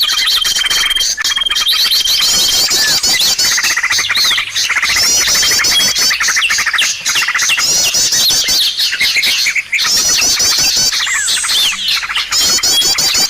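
Bird-lure call recording: many small birds chirping and twittering at once in a dense, repeating chorus. A long, steady, high whistle note sounds over it for the first couple of seconds.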